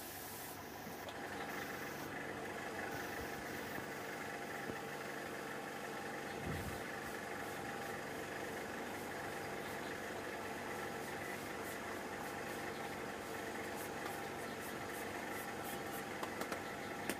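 A machine motor running steadily, a constant hum with no change in pitch, with a few light clicks near the end.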